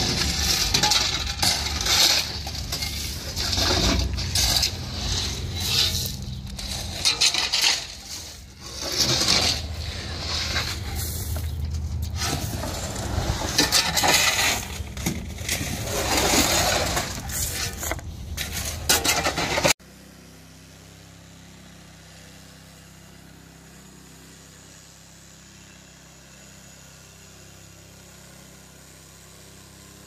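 Steel shovel scraping along a dump trailer's metal bed and throwing gravel out, in repeated scrapes and rattles of loose stone over a steady low hum. About two-thirds of the way through it cuts off abruptly, leaving a much quieter steady hum.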